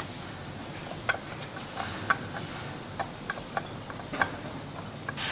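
A socket ratchet clicking in short, irregular ticks, about a dozen in all, as it screws a special tool into the rear CVT pulley to spread the pulley open and slacken the drive belt.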